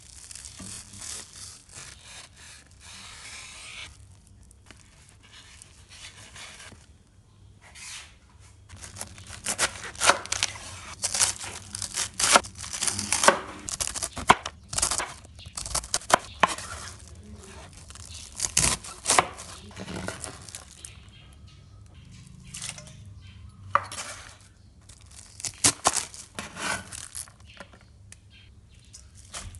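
A large knife sawing through toasted sandwich bread, a crackly scraping for the first few seconds; then a chef's knife slicing a cabbage on a wooden cutting board, a long run of crisp crunching cuts in irregular bursts, each stroke knocking on the board.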